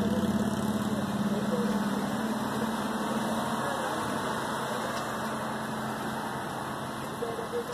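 Car engine idling with a steady low hum that fades out about halfway through.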